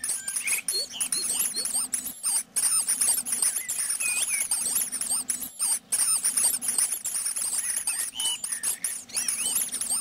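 Common blackbird nestlings begging for food: a dense, continuous chorus of high-pitched squeaky calls from the nest as the parents feed them.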